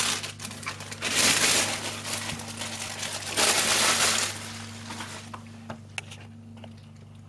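Thin plastic bag crinkling and rustling as a portable PA speaker is pulled out of it, loudest about a second in and again around three and a half seconds in. It then dies down to a few faint handling clicks over a steady low hum.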